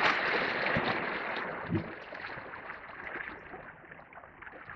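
Sea water washing against the rocks of a breakwater, a steady hiss that fades gradually over a few seconds.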